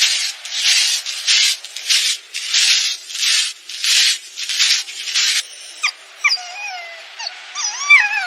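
A dog panting in quick breathy huffs, about two a second, then giving a few high, squeaky whimpers near the end.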